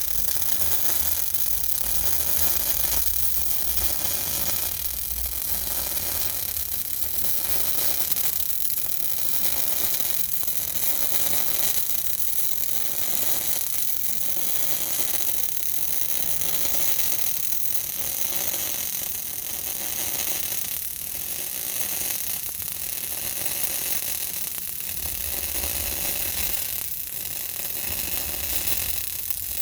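Electric welding arc crackling steadily through a long continuous bead on half-inch steel plate, with a faint swell every second or two.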